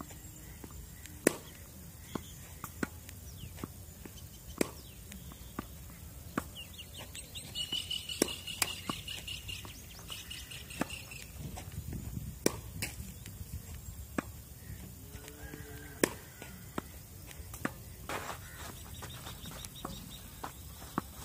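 Tennis balls being struck with rackets, sharp single hits every second or two. A bird chirps in a quick, repeated run for several seconds near the middle.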